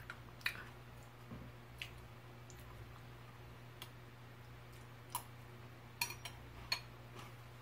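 A metal spoon clinking lightly against a ceramic bowl of hardtack soaked in milk: a handful of scattered sharp clicks, several close together about six seconds in, over a faint steady low hum.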